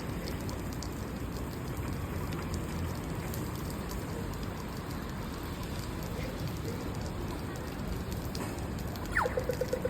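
Steady rain falling on pavement. Near the end an Australian pedestrian crossing signal gives its quick falling 'bew' tone and then rapid, even ticking, the signal that it is time to walk.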